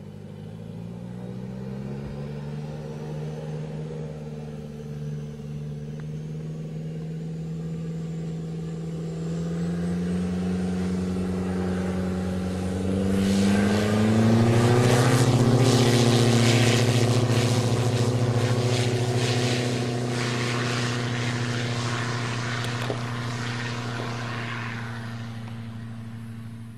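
Engine of the Meridian, a 26-foot-wingspan, 1,100-pound unmanned aircraft, running at takeoff power through its takeoff run and climb-out. The pitch rises about a second in and again about halfway through. The sound is loudest, with added rushing noise, as the aircraft passes close and lifts off, then settles as it climbs away.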